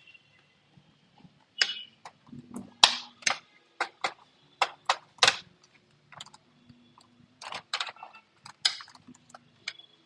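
Sharp, irregular clicks and clacks of small hard laptop parts being handled during reassembly: screws and plastic casing pieces being picked up, set down and fitted.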